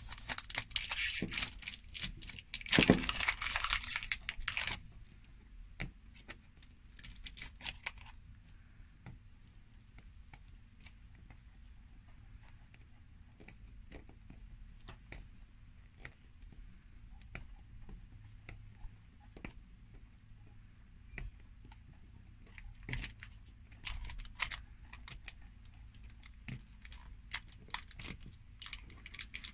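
Plastic film wrapper of an L.O.L. Surprise! ball being peeled and pulled off by hand, with crinkling and tearing. The crinkling is loud for the first few seconds, then drops to scattered small clicks and soft rustles, and picks up again near the end.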